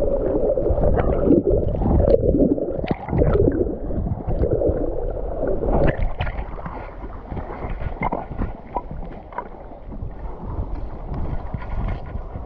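Lake water gurgling and sloshing around a camera held at the waterline beside a chain stringer of kokanee salmon. The sound is dense and muffled for about the first half, then turns lighter and thinner, with a few small ticks.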